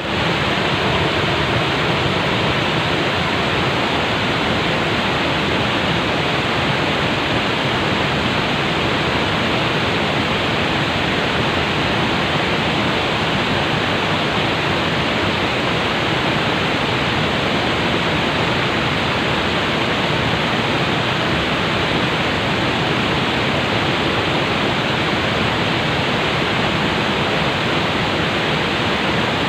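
Water flowing calmly and steadily, an even, unbroken rush with no breaks or splashes standing out.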